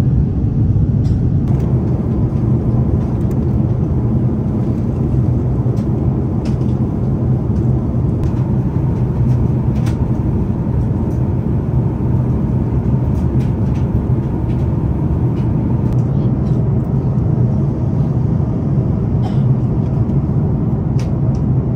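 Steady cabin rumble of an Airbus A330-900neo in flight, with engine and airflow noise heard from inside the passenger cabin. A few faint clicks sit over it.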